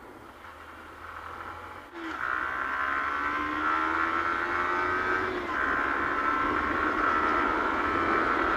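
Yamaha R15 V3's 155 cc single-cylinder engine running under way. It gets louder about two seconds in, its pitch climbs slowly for a few seconds, dips briefly near the middle, then holds steady.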